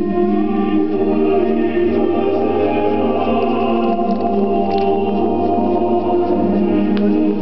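Slow music of long held chords that shift every few seconds.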